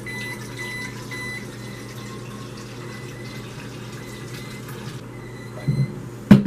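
Water running steadily into a SodaStream plastic carbonating bottle as it is filled, then two knocks near the end, the second one louder.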